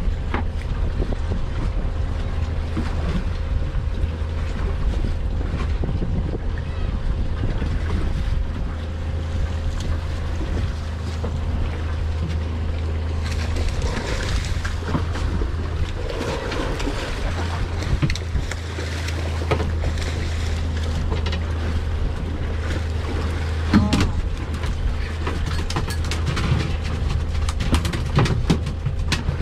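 Boat engine idling steadily, with wind on the microphone and water around the hull. A fish splashes at the surface about halfway through, and a few sharp knocks come later on.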